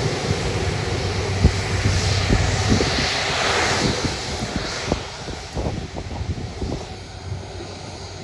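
Jet engines of an Airbus A330 airliner running as it moves past close by: a steady rushing hiss that swells about three to four seconds in, then fades as the aircraft moves away. A few sharp low thumps sit under it.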